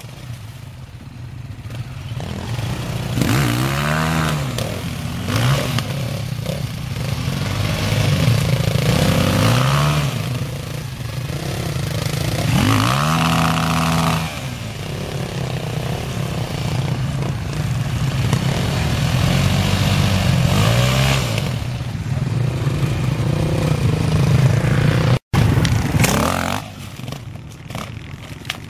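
Several enduro dirt-bike engines revving hard in repeated bursts, pitch rising and falling, as the bikes churn through a muddy, water-filled ditch and climb out of it.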